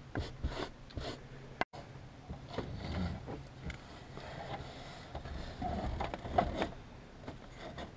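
A plastic vehicle center console being shifted and pushed into place by hand: scattered knocks, scrapes and rubbing as it slides against the floor and wiring.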